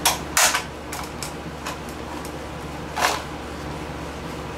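Plastic video-camera housing being handled and worked loose by hand, giving a few sharp clicks and scrapes, the loudest just after the start and again about three seconds in. The cover is held on only by clips on its sides.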